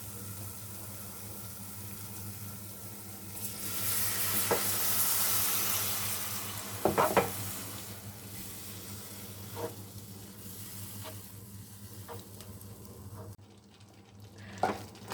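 Milk sizzling in a hot pan of butter-and-flour roux as it is stirred into a white sauce. The hiss swells for a few seconds near the middle, with a few clicks of the spoon against the pan and a steady low hum underneath.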